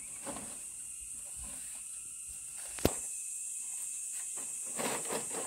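Bamboo poles being handled on a building site: one sharp knock about three seconds in, with rustling and scraping near the end, over a steady high-pitched hiss.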